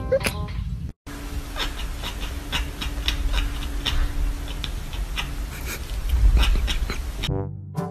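A cat making short breathy sounds through an open mouth, about three a second.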